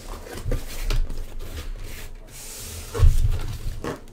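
Cardboard shipping case of sealed trading-card hobby boxes being handled: cardboard rubbing and scraping as a box slides out, with several dull knocks, the loudest about three seconds in.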